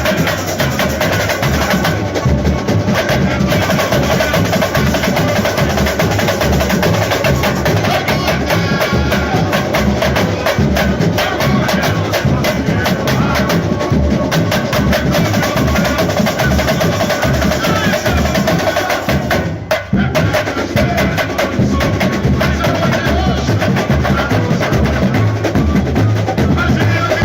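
Samba school drum section (bateria) playing a fast samba with surdos, snares and small percussion, with the samba-enredo sung over it through the sound system. The sound dips for a moment about two-thirds of the way through.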